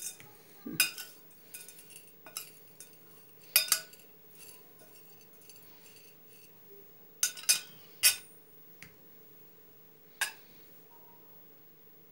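A metal spoon clinks and scrapes against a ceramic plate while stirring salted, finely chopped greens and peppers, with sharp clinks coming at irregular intervals.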